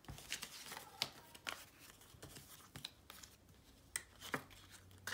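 Dollar bills rustling softly and flicking as they are handled and tucked into a cash envelope, with a few light ticks and scrapes spread through.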